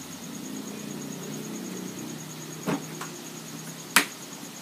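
Plastic drink bottle knocked down onto a table: a lighter knock a little past halfway and a louder, sharp one near the end, over a low steady background hum.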